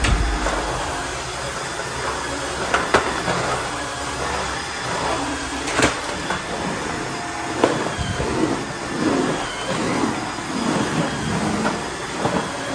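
A cordless wet-dry vacuum floor washer, which vacuums and wet-mops at once, running steadily as it is pushed across the floor. A few sharp clicks sound over it.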